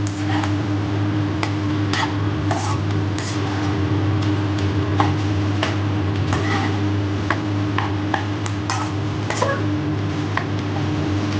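Spatula scraping and tapping against a coated frying pan as fried rice is stir-fried, in irregular scrapes and clicks over a steady low hum.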